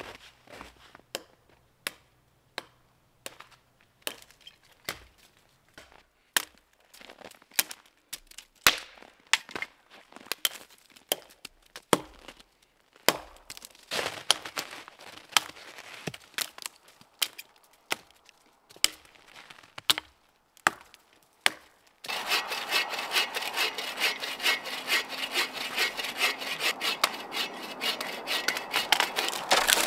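Hatchet chopping dry dead wood: a long run of sharp, irregular knocks and cracks. About two-thirds of the way in it gives way abruptly to a steady, dense crackling and rubbing of dead branches being snapped and pulled.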